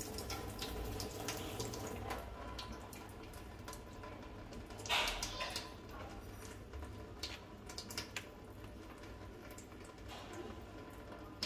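Water running and dripping from a water ionizer's hose, louder for the first two seconds and then a thinner trickle, with small clicks from hands working the hoses and a short louder knock about five seconds in.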